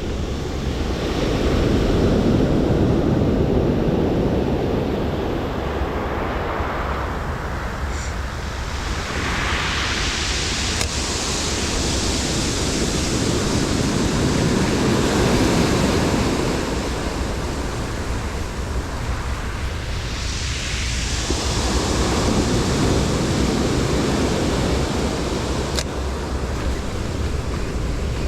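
Ocean surf breaking and washing up a beach, in surges every several seconds with hissing washes of foam, over a low rumble of wind on the microphone.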